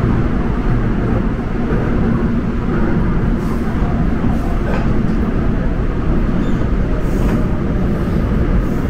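Subway train running, a steady low rumble.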